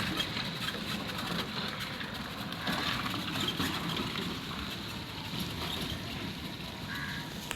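Street traffic noise: a steady mix of passing vehicles on a road.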